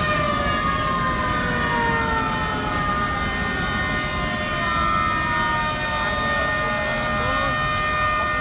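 Several horns and sirens sounding together to salute a ship's launch: a chord of held tones, some sliding slowly down in pitch over several seconds.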